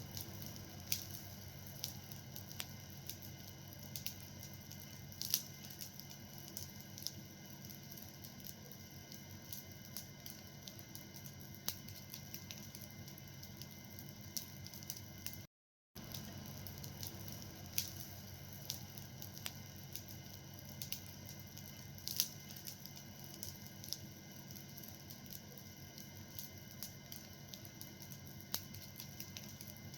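Fire burning, with a steady soft hiss and frequent irregular crackles and pops. The sound drops out completely for a split second about halfway through.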